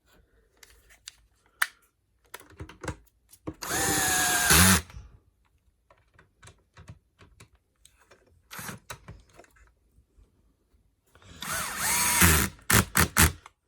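Cordless power screwdriver running in two bursts of about a second each, several seconds apart, driving screws into the back of a vacuum cleaner's housing; the motor whines steadily during each run, and the second run ends in a few sharp clicks.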